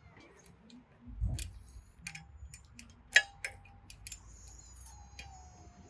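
Scattered metallic clicks and clinks of a 12mm socket wrench being fitted and worked on the log splitter's cover bolts, with a dull thump about a second in.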